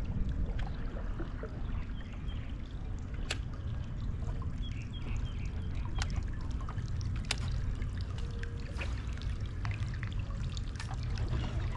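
Water lapping and trickling against a fishing boat's hull, over a steady low rumble, with a few sharp clicks scattered through.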